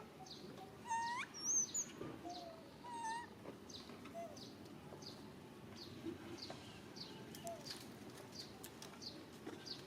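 Small birds chirping, short high chirps repeating about twice a second, with a few louder rising, squeaky calls around one to three seconds in.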